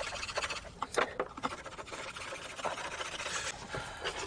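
Hand drill fire-making: a wooden spindle twirled between the palms and grinding against a wooden board. It makes a scratchy rubbing sound, with a few sharper knocks about a second in.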